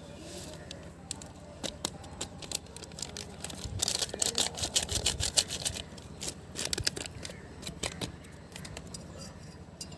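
Kitchen utensils clattering in a run of quick, sharp clicks and taps, with a dense loud flurry in the middle.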